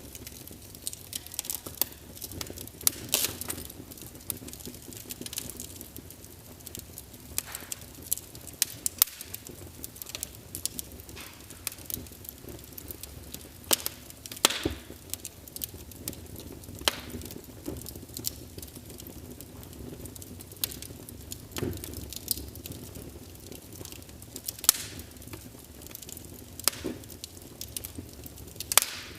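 Wood fire crackling: irregular sharp snaps and pops every second or so, a few of them louder, over a steady low hiss of burning.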